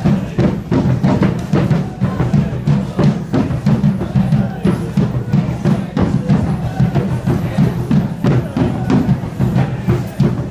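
Live drumming with sticks, a fast, steady beat of drum strikes accompanying Muay Thai training.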